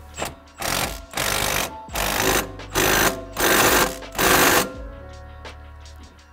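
Power impact wrench hammering in about six short bursts, tightening the coilover's lower control arm bolt. Background music plays underneath.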